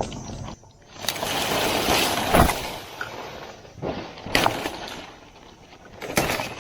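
Coconut palm fronds coming down: a long rustling swish that ends in a heavy crash about two and a half seconds in, then several shorter crashes and knocks.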